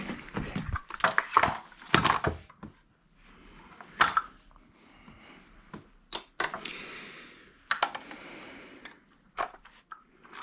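Metal wrenches clinking and rattling against each other as they are rummaged through, with a string of sharp clinks and softer scraping stretches in between.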